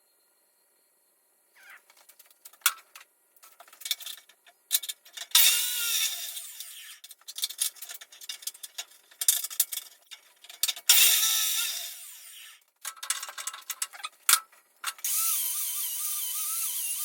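A handheld power tool run in short bursts, its motor whining up and back down in pitch, amid clicks and knocks of metal work. Background music with a wavering tone comes in near the end.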